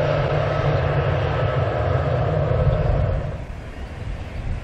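Airbus A321-211's CFM56 jet engines running at low taxi power as the airliner rolls past close by: a steady low rumble with a broad rushing hiss and a faint steady whine. About three seconds in the sound drops abruptly to a quieter, more distant engine hum.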